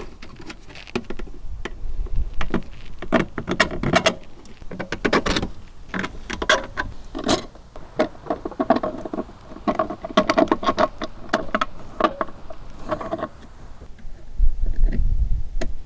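Hand work on a plastic battery box and a battery disconnect switch being fitted back into it: irregular clicks, taps and rattles of parts being handled and pressed into place. A steady hum joins in for a few seconds in the middle.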